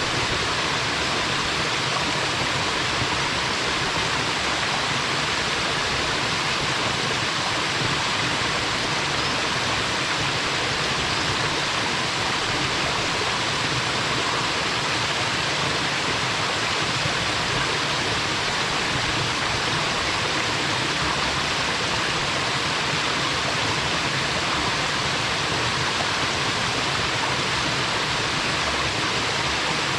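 Waterfall pouring steadily into its pool, a constant rushing splash with a bubbling note the uploader likes.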